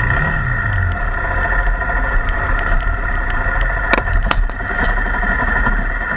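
Honda XR250 Tornado's single-cylinder four-stroke engine running steadily, with a brief rev that rises and falls in the first second. Two sharp clicks sound about four seconds in.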